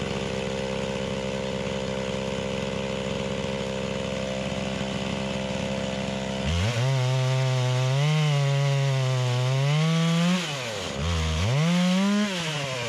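Holzfforma G660 chainsaw running hard on a chainsaw mill, ripping a pine log into planks. It runs steadily, then its pitch wavers up and down as the load changes in the cut, sags briefly near the end and climbs back up.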